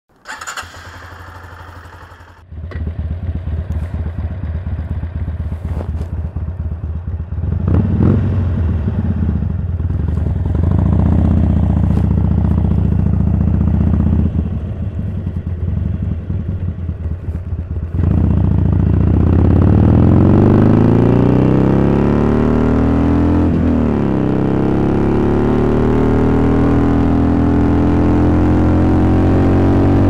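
A 2016 Harley-Davidson Sportster 883 Iron's air-cooled V-twin, running through Cobra slip-on exhaust pipes. It idles with a lumpy, uneven beat, with one quick throttle blip about eight seconds in. From about eighteen seconds in it accelerates away, its pitch climbing, dropping briefly at a gear change and climbing again.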